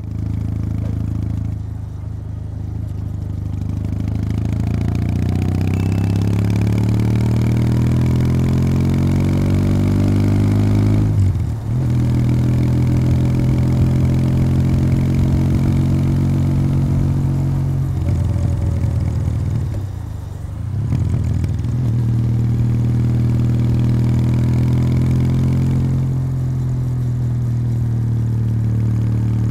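Kawasaki W800's air-cooled parallel-twin engine running through its stock exhaust under way. It pulls up through the revs for about ten seconds, breaks briefly about eleven seconds in, and holds steady. The revs dip and recover around twenty seconds in before it runs steadily again.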